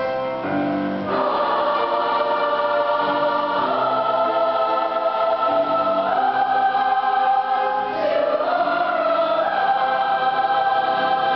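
Large mixed choir singing, holding long chords that change every couple of seconds.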